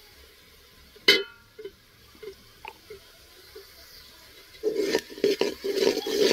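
A steel ladle clinks once against a large aluminium cooking pot with a short ring, followed by a few light taps. About three-quarters of the way in, stirring starts: the ladle scraping through sliced onions and chilli powder frying in hot oil, with a sizzle.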